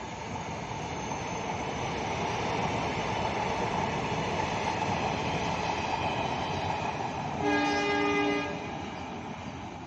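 Express train's passenger coaches rolling past on the rails with a steady rumble that grows slightly louder. About seven and a half seconds in, a train horn sounds once for about a second.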